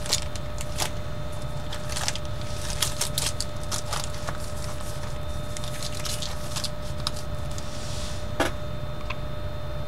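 Steady low hum with a faint high whine, and scattered light clicks and taps that come in small clusters, one a little louder about eight and a half seconds in.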